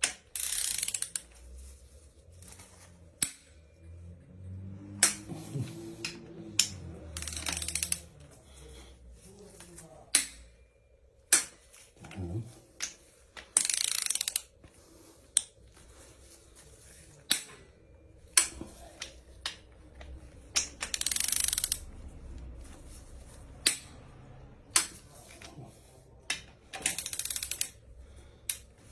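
Socket ratchet clicking in several short bursts, with single tool clicks and knocks between them. Cylinder head bolts are being turned a further 90 degrees one after another.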